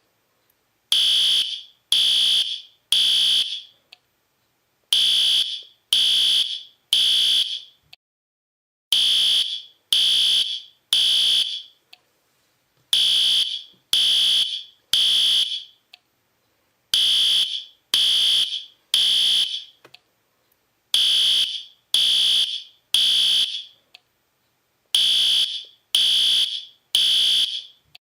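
Fire alarm sounding the temporal-three evacuation pattern: three high-pitched beeps about a second apart, a pause, then the next three, over and over. Each beep fades quickly after it starts.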